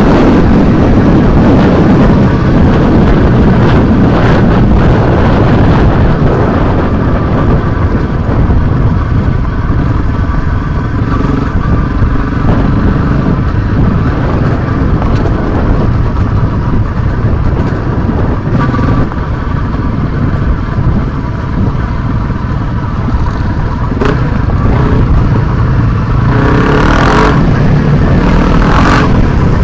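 Enduro motorcycle engine running continuously on a gravel track, heard from the riding bike itself, with other dirt bikes running just ahead. The engine eases off for a few seconds past the middle and picks up again near the end.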